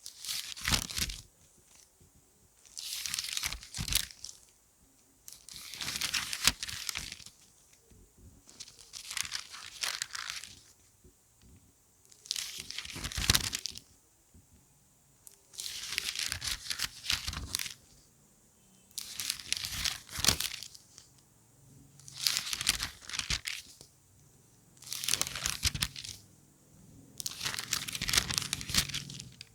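Book pages being turned one at a time: about ten crisp paper rustles, each lasting a second or so with a sharp flick of the page, with short quiet pauses between them.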